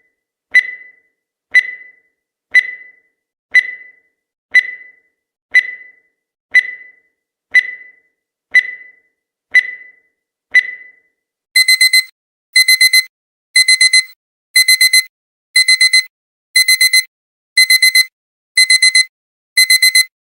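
Electronic countdown-timer beeps: a single short beep once a second, each fading quickly. About eleven seconds in, the countdown reaches zero and a digital alarm-clock sound takes over: quick bursts of four beeps, one burst a second.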